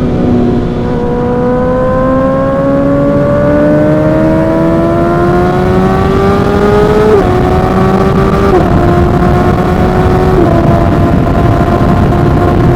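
Suzuki GSX-R1000's inline-four engine under acceleration on the move. Its note climbs steadily for about six seconds, then drops in three quick steps as it shifts up through the gears, a second or two apart, and holds nearly level. Wind rushes underneath.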